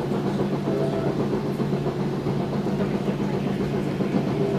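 Steady running rumble and hum of a moving passenger train, heard from inside the coach.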